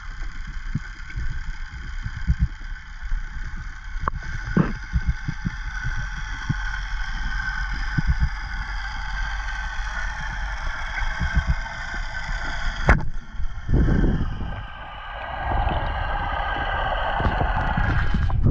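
Boat engine heard underwater: a steady whine of several high pitched tones that drift slowly, over a low rumble with scattered knocks and a sharp click about two-thirds of the way in. Near the end the sound shifts and gets noisier as the camera rises toward the surface.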